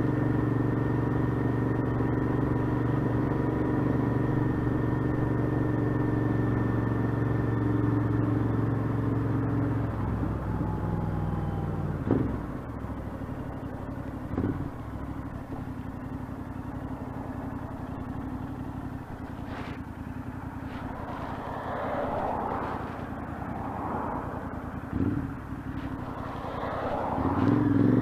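Royal Enfield Interceptor 650's parallel-twin engine heard from the rider's seat, running steadily at cruising speed. About ten seconds in the throttle is backed off and the engine runs quieter at lower speed, with a few brief surges in its note. Near the end it picks up and gets louder again.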